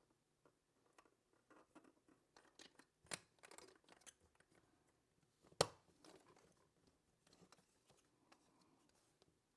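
Small 3D-printed plastic pieces being handled and pressed together: faint scraping and clicking, with a sharp click a little after three seconds and a louder one about five and a half seconds in.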